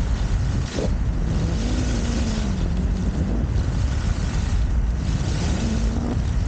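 Wind rushing and buffeting over the microphone of a camera carried by a skier at about 40–48 km/h, with the hiss of skis sliding fast over groomed snow.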